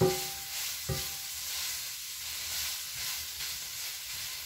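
Ground hot Italian sausage with onion, peppers and garlic sizzling steadily in a large stainless steel fry pan as it is stirred with a spatula. The spatula knocks against the pan twice, at the start and about a second in, with a short metallic ring.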